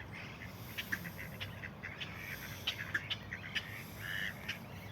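A mixed flock of ducks, geese and other park birds calling: many short calls and chirps overlapping.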